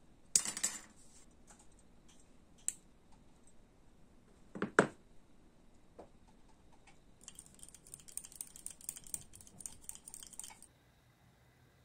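Hobby side cutters snipping a clear plastic part off its sprue, with a sharp snap about half a second in and a louder one near five seconds in. After that, a run of quick light clicks and scraping from a small glass paint jar being worked.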